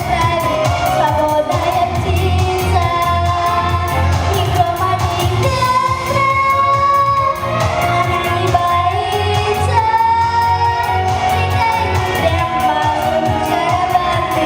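Female vocalist singing a pop song over instrumental accompaniment with a steady beat, holding some long notes.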